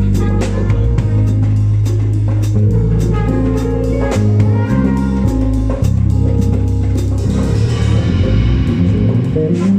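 Live band playing: a drum kit keeps a steady beat over held bass notes, with other instruments on top that grow brighter near the end.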